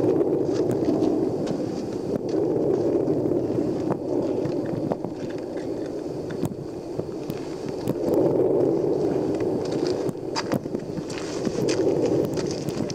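Lava fountain at Etna's New Southeast Crater during a paroxysm: a continuous rushing roar that swells and eases every few seconds, with scattered sharp cracks.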